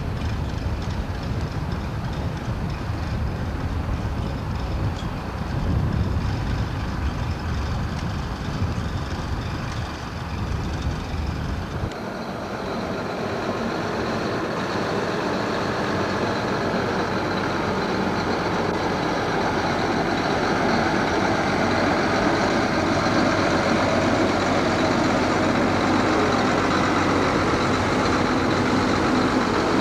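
Heavy work vehicles running: a paving-fabric tractor and an asphalt distributor truck, with wind rumbling on the microphone for about the first twelve seconds; then the rumble drops away suddenly and a steady, brighter engine and road noise takes over.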